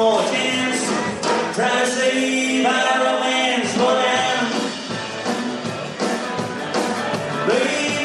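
A rock and roll song playing, with singing over the band.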